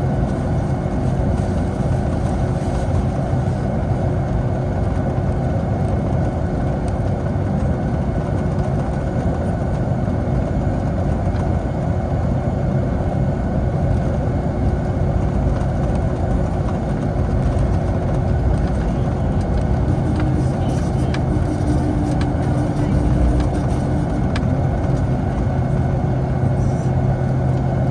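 Steady jet engine and airflow noise inside the cabin of a Boeing 757, a constant low hum with a faint steady tone.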